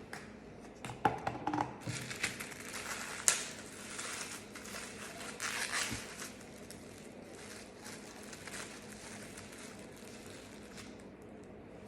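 Food packaging crinkling and rustling close to the microphone in several short, irregular bursts, loudest a few seconds in, then only scattered small clicks.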